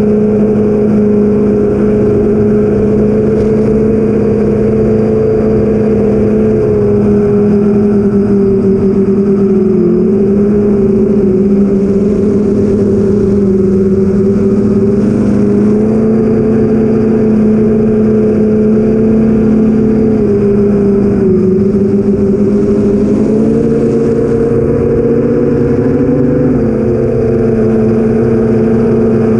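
Four BrotherHobby Avenger 2812 1115kv brushless motors spinning 8-inch 8045 props on an FPV quadcopter, humming steadily as heard from the drone's onboard camera. The pitch wavers up and down with throttle changes, and around three-quarters of the way through the tone briefly splits into two pitches as the motors change speed.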